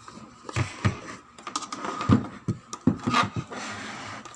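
Irregular knocks and clicks of hands handling the repaired speaker board and its leads on a workbench while it is readied for a power-on test.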